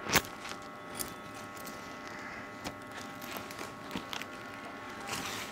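Photo album pages in plastic sleeves being handled and turned: a sharp tap just after the start, scattered small clicks, and a short rustle near the end, over a faint steady hum.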